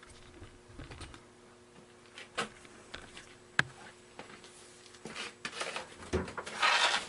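Scattered clicks and light knocks of objects being handled, with a burst of rustling near the end, over a faint steady hum.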